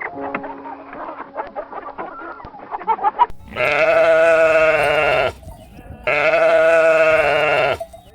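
Goat bleating twice, each a long, loud, quavering call of nearly two seconds, about three and a half seconds in and again about six seconds in. Before that, chickens cluck.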